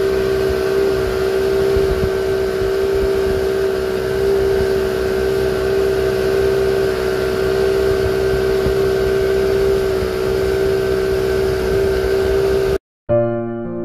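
Fishing boat's engine running steadily at cruising speed, a constant drone with the rush of the wake and wind behind it. It cuts off abruptly near the end, and electric piano music begins.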